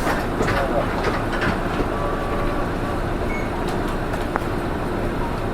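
Cabin sound of a PKG-RA274MAN city bus on the move: its diesel engine and drivetrain run at a steady speed under road rumble, with a faint click about four seconds in. This bus is known for an unusual running noise.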